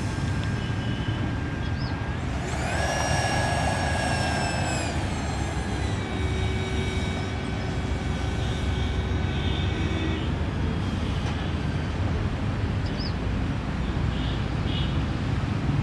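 Small electric ducted-fan motor of a homemade RC air boat whining. It rises in pitch about two seconds in, eases down a few seconds later and holds steady for a while, over a steady low rumble.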